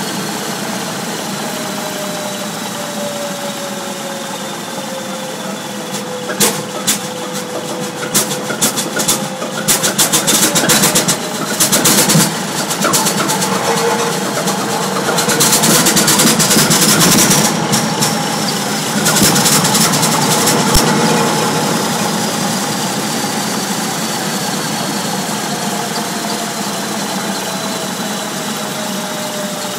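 Old Duvant diesel engine running just after being started. Irregular sharp knocks come through about a quarter of the way in. It then speeds up and gets louder near the middle before slowly settling back.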